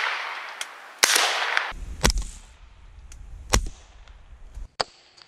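Colt 9mm AR-15 carbine firing through a YHM Sidewinder suppressor: a string of single semi-auto shots roughly a second apart, each a sharp crack with a short tail.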